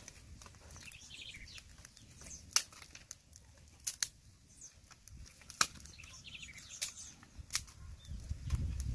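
Open wood fire crackling, with about half a dozen sharp pops scattered through it.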